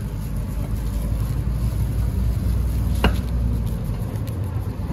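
Low, steady rumble of background street noise, with a single sharp click about three seconds in.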